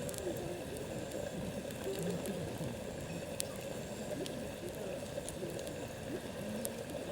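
Food bubbling in a pan over a wood campfire, a steady low simmer, with scattered sharp crackles and pops from the burning wood.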